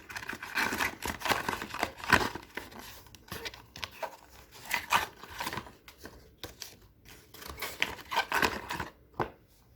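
Packaging paper and cardboard rustling and crinkling as it is handled, in irregular bursts.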